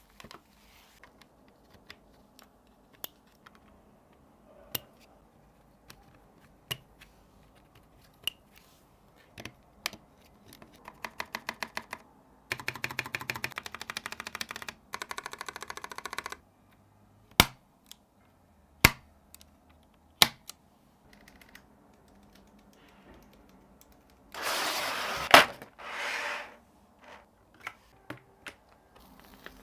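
Keys of a NuPhy TES68 mechanical keyboard kit being pressed: scattered single clicks, then a fast, even run of keystrokes, then a few louder single clacks. A brief scraping rustle comes near the end.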